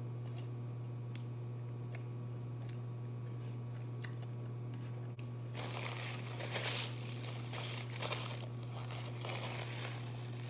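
Quiet chewing of a chicken wing with faint small clicks, then about halfway in a paper napkin is unfolded and crinkled, rustling louder as it is pressed to the mouth near the end. A steady low hum sits underneath.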